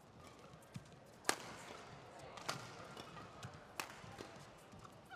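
Badminton rackets striking a shuttlecock in a doubles rally: three sharp hits about a second and a quarter apart, the first the loudest.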